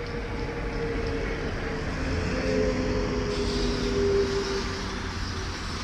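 BKM 32102 trolleybus pulling in to a stop, its electric drive whining in a few tones that slide down as it slows, over steady street traffic. A brighter hiss joins about three seconds in.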